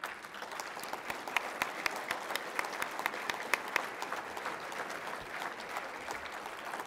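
Audience applauding, many hands clapping at once, starting suddenly.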